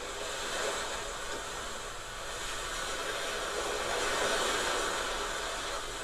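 AI-generated sound effect of ocean waves crashing against a shore: a rushing wash that swells to its loudest about four seconds in, then eases off.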